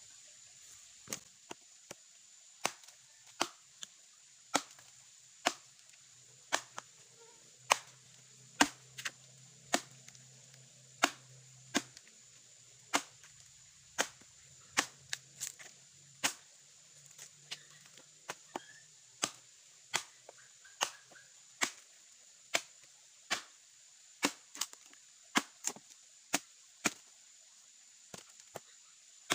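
Axe chopping into a freshly cut log: sharp wooden blows, about one a second with uneven gaps, as the wood is split.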